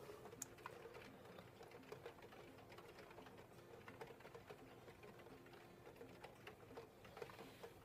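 Near silence: room tone with a faint steady hum and a few faint ticks.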